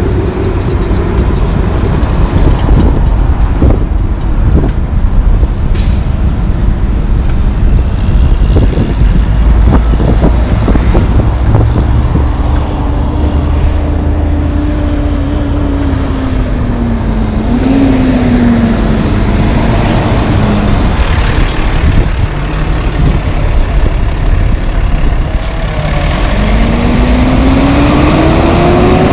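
Heavy diesel trucks passing in city traffic, with a steady low engine and road rumble. An engine note falls midway, with brief high squeals, and near the end a tandem-axle truck carrying a steel shipping container pulls away close by, its engine note rising.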